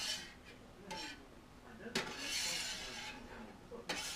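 Metal spatula scraping and knocking on a flat-top griddle while spreading oil over it: a few sharp taps, the loudest about two seconds in, followed by about a second of scraping.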